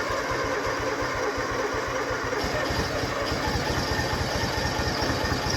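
Kubota engine turning over on its first start attempt, a steady rapid chugging that keeps going without a break.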